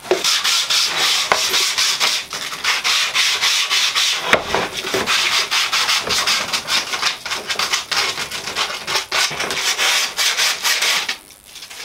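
Hand-sanding the wooden rails of a router sled: sandpaper rubbed over the wood in quick back-and-forth strokes, about four a second, stopping near the end. The rails are being smoothed so the router carriage slides through them smoothly.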